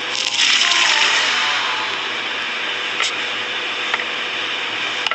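Steady hissing noise, a little louder in the first second, with a sharp click about three seconds in and a fainter one about a second later.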